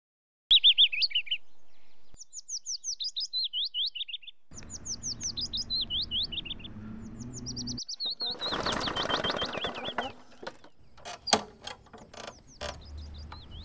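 Small songbirds chirping in quick runs of short, high, down-sliding notes, over a faint outdoor background. A few sharp clicks come near the end.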